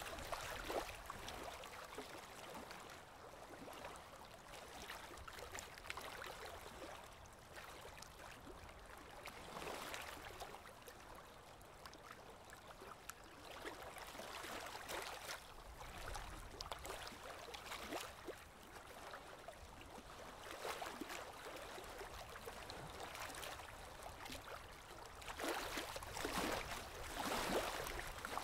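Pencil scratching on drawing paper in irregular strokes, with a run of louder strokes near the end.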